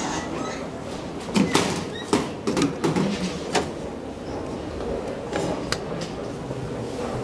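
Metal elevator doors clicking and knocking as they are handled: a quick run of sharp knocks in the second and third seconds, then two more clicks later, over a steady background hum.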